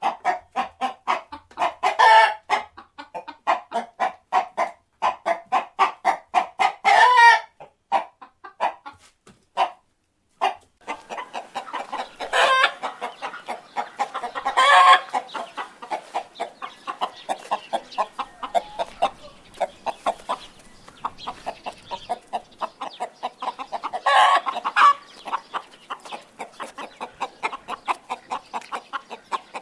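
Chickens clucking in quick, steady runs of short calls, with louder drawn-out squawks breaking in about five times. A brief pause near ten seconds, then the clucking resumes.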